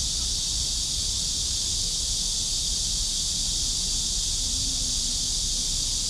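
A chorus of cicadas in the trees, singing as one steady, unbroken high-pitched drone.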